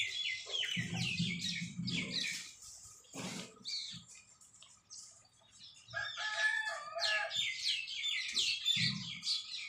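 Small birds chirping rapidly and continuously. A rooster crows once, about six seconds in.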